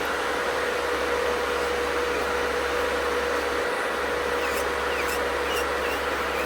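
Electric nail drill running steadily with a medium carbide safety bit, filing down acrylic: a constant high whir, with a few faint ticks in the second half.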